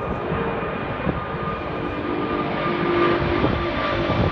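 An Airbus A380's four Rolls-Royce Trent 900 turbofans climbing out after takeoff. A steady jet roar with a few held tones in it, growing a little louder from about three seconds in.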